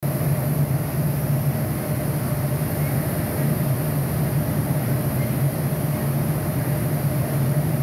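Steady, loud drone of a crystal glassworks floor, with furnaces and extraction fans running under a strong, even low hum.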